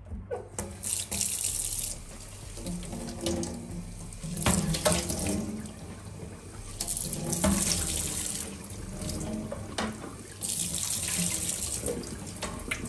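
Kitchen tap running into a stainless steel sink, the water splashing over a flat panel being rinsed under it. The flow comes and goes in spells of a second or two, with a few knocks in between.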